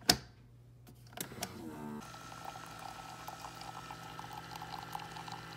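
Keurig single-serve brewer: a sharp click, then the machine starts up about two seconds in and runs with a steady hum as hot water streams into the cup.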